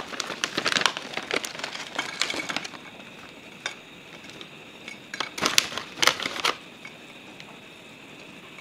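Plastic bag of frozen broccoli crinkling as florets are pulled out and set into a glass dish, with light clicks of the pieces on the glass. The crinkling is busiest in the first few seconds and comes again in a short flurry a little past halfway.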